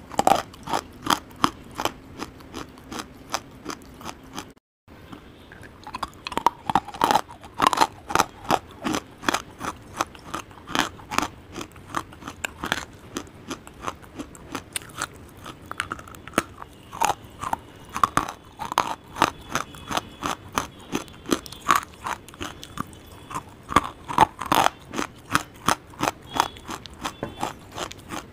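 Close-miked biting and chewing of hard dry clay chunks: rapid sharp crunches, several a second, with a short silent break about five seconds in.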